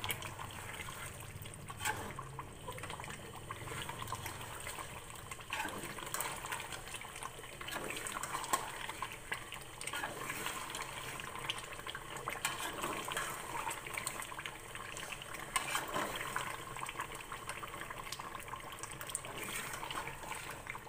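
Chicken korma bubbling and sizzling in a metal pot while a metal spoon stirs it, with scattered light clicks and scrapes of the spoon against the pot. The curry is being fried down with its oil risen to the top.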